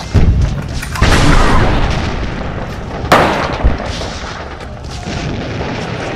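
Gunfire from rifles firing blanks: four sharp shots within the first four seconds, each trailing off in a long echo.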